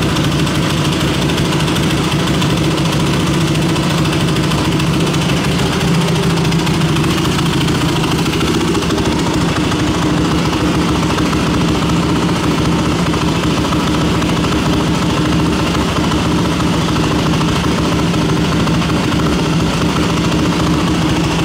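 Yamaha WR450F's single-cylinder four-stroke engine idling steadily.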